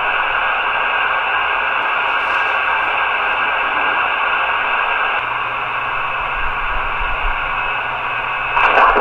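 Steady receiver hiss from a Swan 250 tube transceiver's speaker, tuned to an empty 6-meter sideband frequency. A faint low hum comes in about five seconds in, and a voice begins over the radio just before the end.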